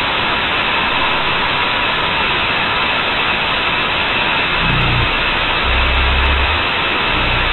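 Loud, steady Gaussian white noise added by a MATLAB script to a voice recording, played back at an 8192 Hz sample rate so the hiss stops sharply above about 4 kHz. The recording is buried under the noise, and some low sound shows through from about five seconds in.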